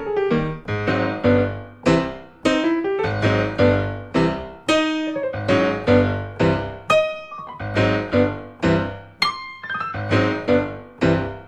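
Background piano music: a solo piano playing struck notes and chords at about two or three a second, each dying away before the next.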